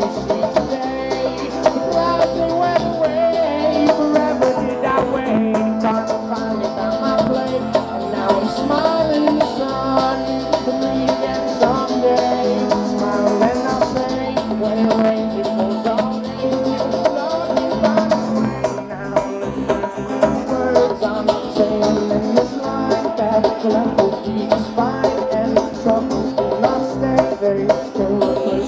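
Live band playing an instrumental jam: acoustic guitar, electric bass, drum kit and hand drums, with a steady groove throughout.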